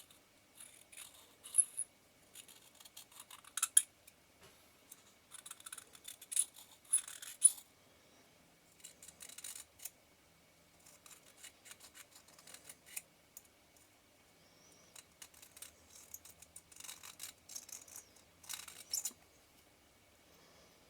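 Scattered light clicks, taps and scraping of small metal tools against the lens's helicoid parts as its worn focusing thread is worked on. The sounds come in short clusters, the busiest in the first eight seconds and again near the end.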